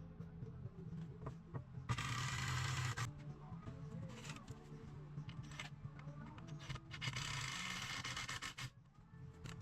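Two bursts of rasping scraping, the first about two seconds in and lasting about a second, the second near the end and lasting about a second and a half, over a faint steady low hum.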